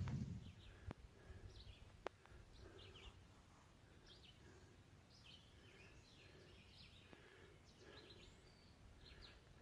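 Faint birdsong: many short chirps repeating throughout, with two sharp clicks about one and two seconds in.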